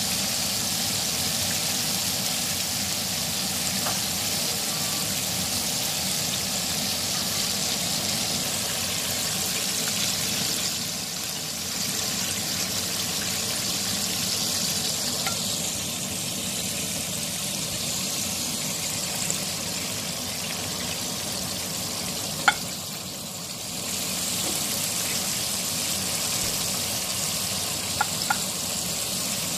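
Breaded chicken pieces deep-frying in hot oil in a pan, a steady hissing sizzle. A few sharp clicks of a utensil against the pan come near the end as pieces are turned and lifted out.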